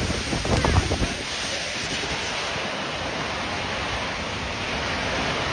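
Steady rushing noise of a storm, with wind buffeting the microphone.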